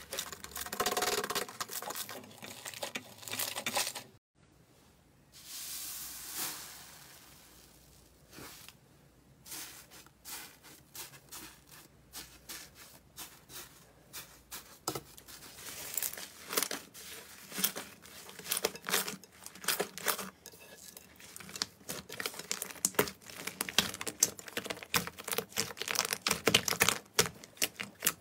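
Hands squeezing and stretching fluffy slime, close to the microphone: fast, uneven crackling and clicking. It drops to near silence for a moment about four seconds in.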